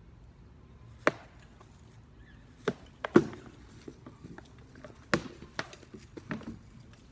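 Rattan swords knocking against shields and armour in a sparring exchange: about a dozen sharp, irregular knocks, the loudest about three seconds in.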